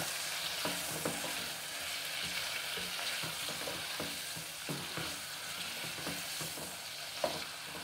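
Raw chicken pieces sizzling in hot ghee with browned onions in a nonstick pot, stirred with a spatula that knocks and scrapes against the pot every second or so, with one clearer knock near the end.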